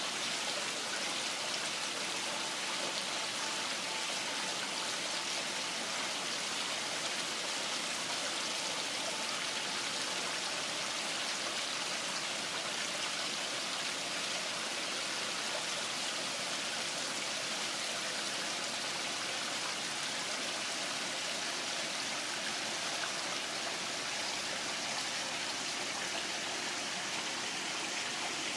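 Small pondless waterfall: water running steadily over rocks and splashing into the basin, an even rushing, splashing sound.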